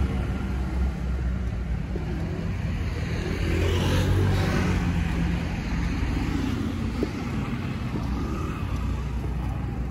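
Street traffic: the steady low running of car and motor scooter engines, swelling as a vehicle passes close about four seconds in.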